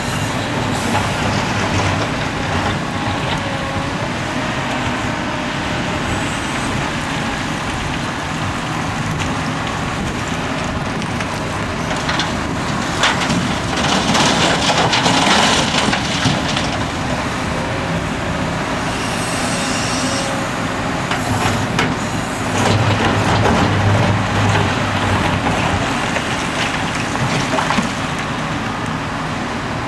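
Liebherr R974B crawler excavator's diesel engine running steadily under load as it digs and loads rock. About halfway through, a bucketful of rock pours into the steel bed of a dump truck with a loud rattling crash. Later the engine works harder again as the machine digs.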